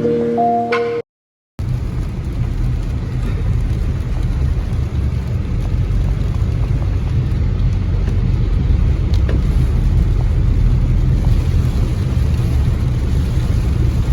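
Wind rumbling on the microphone while cycling: a loud, steady low rumble without any tone. It follows a snatch of background music that cuts to a brief silence about a second in.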